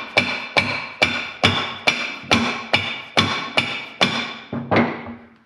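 Hammer rapping a valve spring compressor on a Ford 4.0 V6 cylinder head, about two ringing metal strikes a second, to compress a stuck valve spring and free its keepers. The strikes stop near the end.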